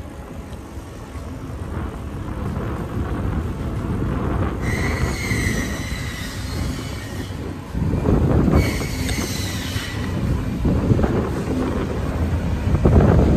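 Wind rumbling on the microphone of a bicycle being ridden, with two high wavering squeals, one about five seconds in lasting under three seconds and a shorter one about nine seconds in, from the bicycle's brakes.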